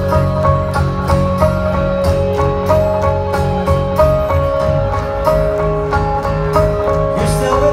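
Live rock band playing an instrumental stretch with no vocals: a repeating line of short melodic notes over bass guitar and drums.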